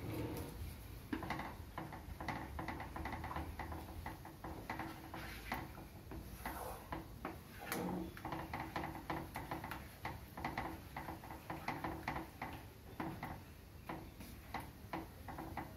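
Thick tomato rasam paste boiling in a pan on a gas flame: a faint, irregular run of small pops and ticks from bursting bubbles.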